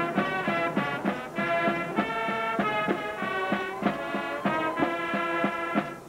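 Brass band music: horns holding notes over a steady drum beat of about two to three strikes a second, dropping away just before the end.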